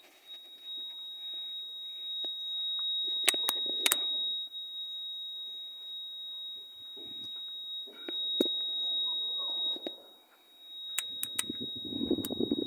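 A continuous high-pitched electronic buzzer tone, with a few sharp clicks at irregular moments and a quick run of clicks near the end.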